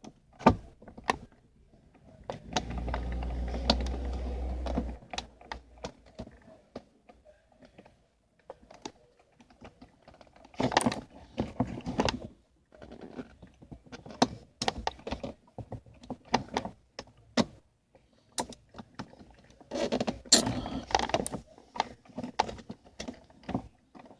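Hands fitting the plastic parts of a BMW E46 power-window switch: irregular clicks, taps and small rattles of plastic, bunched into denser clatters around ten seconds in and again about twenty seconds in. A low steady hum sounds for about two seconds a few seconds in.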